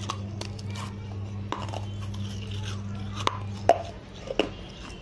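Sharp crunches of a baked terracotta clay-pot (gullak) piece being bitten and chewed: a handful of separate cracks, the loudest nearly four seconds in.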